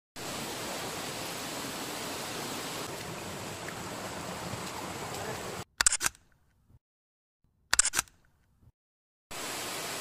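Steady rush of a rocky jungle stream and waterfall, cut off abruptly about five and a half seconds in. Two sharp camera-shutter clicks follow about two seconds apart, each with dead silence after it, and the rushing water comes back near the end.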